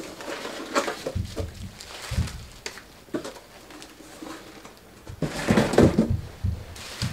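Dull thumps of children jumping on the floor upstairs, a burst of them about five seconds in, with faint clicks and rustling.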